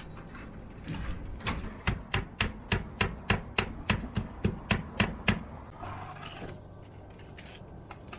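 A run of about a dozen sharp hammer blows at roughly three a second, stopping about five seconds in.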